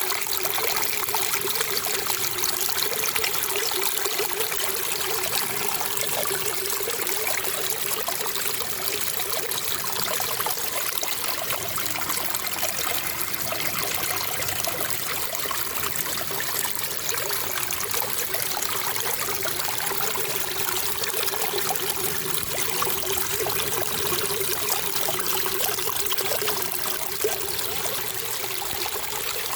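Flowing water trickling steadily and evenly, with no breaks or changes.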